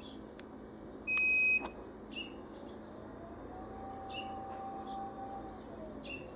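2021 Mazda CX-5 power liftgate closing on the remote's command: one loud half-second warning beep, then the liftgate motor whining as the hatch lowers, its pitch rising slowly, holding, and dropping away near the end.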